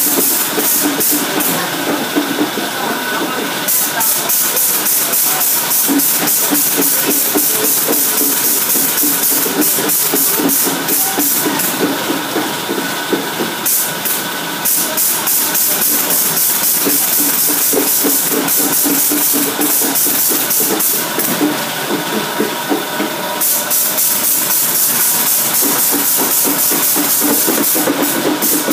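SY-50B paper bag bottom gluing machine running: a steady mechanical clatter with a fast, even hissing pulse, several beats a second. Three times the pulses run together into a continuous hiss for a second or two.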